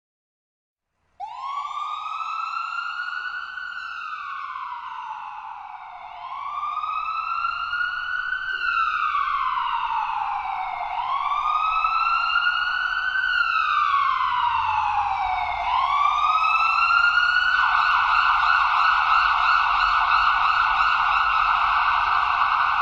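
Ambulance siren starting about a second in with a slow wail, its pitch rising and falling about every five seconds. About 17 seconds in it switches to a fast warbling yelp, growing louder throughout.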